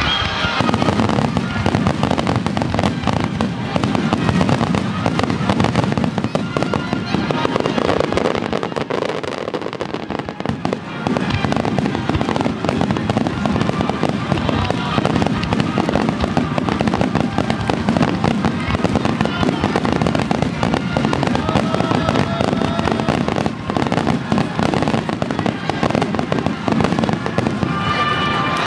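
Starmine fireworks: a dense, unbroken barrage of shells bursting and crackling in rapid succession, easing briefly about ten seconds in, with music playing underneath.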